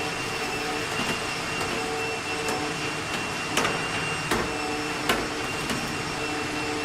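A steady machine-like rushing noise with a faint hum, like a fan or blower, broken by about seven sharp clicks and knocks scattered through it.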